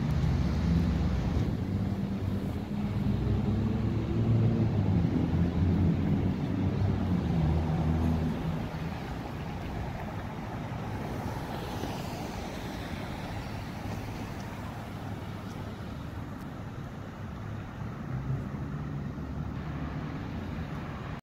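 City street traffic: a vehicle engine running close by and loud for the first eight seconds or so, then passing traffic with a brief falling hiss of a car going by, settling into a steady traffic rumble.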